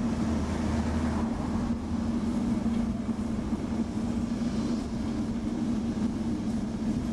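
Lisbon tram running along street track, heard from on board: a steady hum over the rumble of the wheels on the rails, with a deeper rumble that drops away about a second in.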